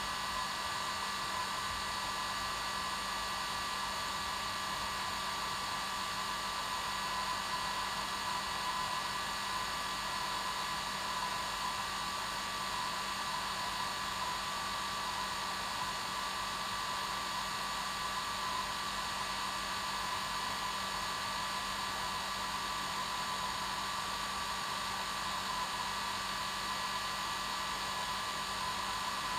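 Hair dryer running, a steady rushing whoosh with a constant motor whine.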